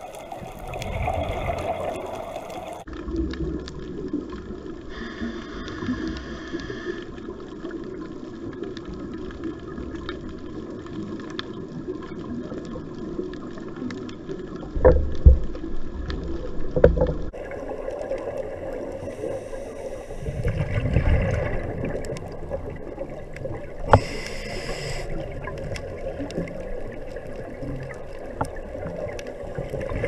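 Underwater ambience picked up by a diving camera: a steady rush of water with the bubbling of scuba divers' exhaled air, and a few sharp knocks around the middle and again later.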